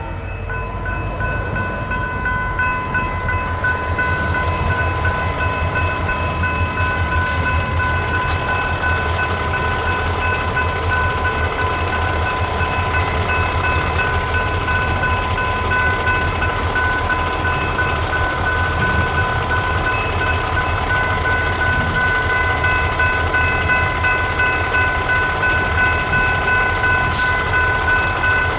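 Railroad crossing's General Signals Type 3 electronic bells ringing in a steady high tone. Under them is the low, steady rumble of a train rolling through the crossing.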